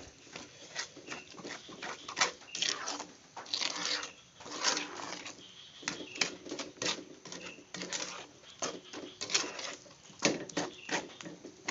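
Durian flesh and sugar being stirred in a cooking pan: irregular scraping strokes of the stirring utensil against the pan, about one or two a second, as the thick paste is worked.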